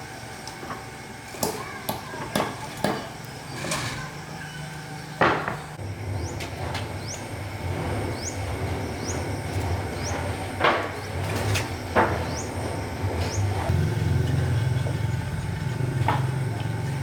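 Irregular metallic clanks and knocks of tools and parts being handled during diesel engine repair work, with a low rumble that sets in about five seconds in and grows louder near the end.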